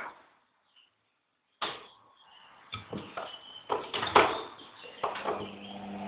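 Front-loading washing machine running, with a string of sharp knocks and bumps after a brief near-silence, the loudest a little after the middle, and a steady low hum setting in near the end.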